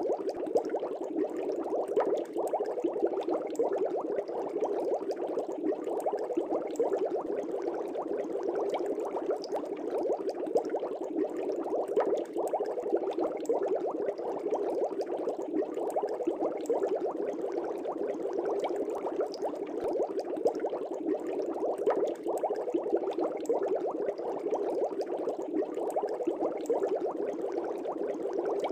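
Aquarium air bubbles rising and burbling in a fish tank: a steady, dense bubbling with many small pops.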